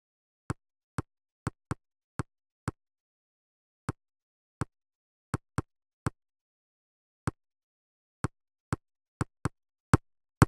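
Sampled soccer-ball kicks, the thud of a foot striking a ball taken from penalty-kick recordings, played back alone as drum hits to serve as an attack layer for a kick drum. About eighteen short, sharp knocks in an uneven, song-like rhythm, the last two the loudest.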